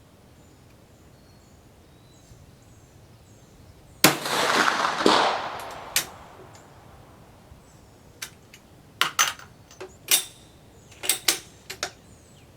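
A Swiss 1878 Vetterli bolt-action rifle fires a single handloaded centre-fire round about four seconds in, and the shot echoes away over about two seconds. After it comes a run of sharp metallic clicks and clacks as the bolt is worked to eject the case and reload.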